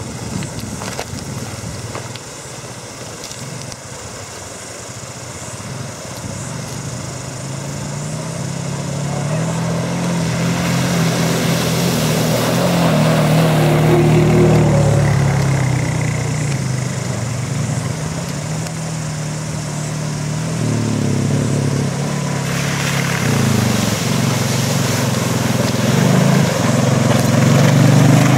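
Quad bike (ATV) engines running as the bikes ride toward the camera, growing louder as they approach. The engine pitch rises and falls with the throttle, loudest about halfway through and again near the end.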